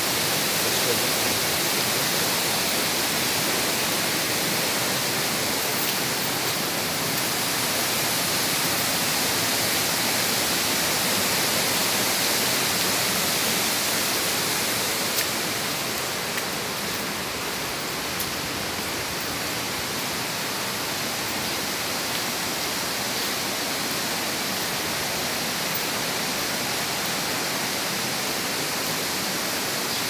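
Steady rush of a waterfall and its river's white water, easing slightly about halfway through.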